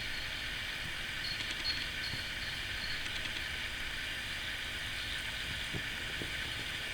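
Steady hiss of a gas stove burner flame heating sugar cubes that are melting in a metal spoon held over it.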